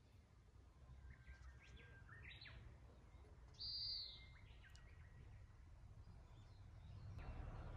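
Faint bird calls and chirps over a quiet outdoor background, with one brief louder high call a little before the middle.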